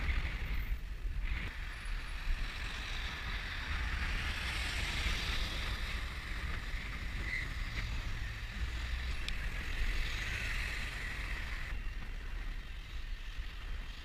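Wind buffeting a bicycle-mounted action camera's microphone while riding, a steady low rumble with soft tyre and road hiss over it.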